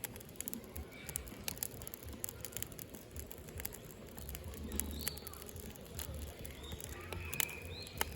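Firewood burning in a Hillscam Firenado Large fire pit, crackling with irregular sharp pops over a low steady rumble. Birds chirp briefly several times in the second half.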